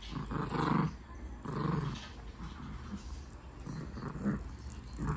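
Small dog growling in play as it tugs at a plush toy held in a hand. It comes in short growls, the loudest in the first two seconds, with weaker ones later.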